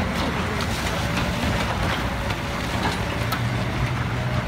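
Semi-truck's diesel engine running steadily under load as it tries to pull away on ice, its drive wheels spinning in place: worn, bald tyres with no grip on the ice.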